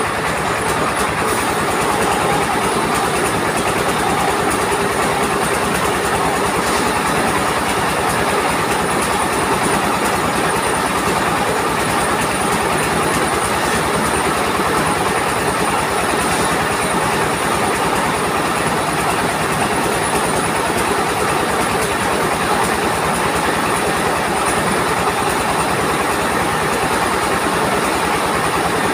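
Mobile rice mill running: its engine drives the husker and polisher by belt, a loud, steady mechanical din with a rattle as grain is fed through.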